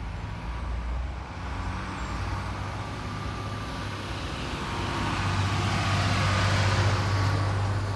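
Road traffic: a motor vehicle passing close, its low engine hum and tyre noise building to loudest about six to seven seconds in, then easing off.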